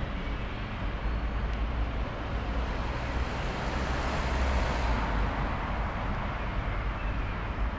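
Street traffic: a vehicle passes close by, its tyre and engine noise swelling to a peak about halfway through and then fading, over a steady low rumble.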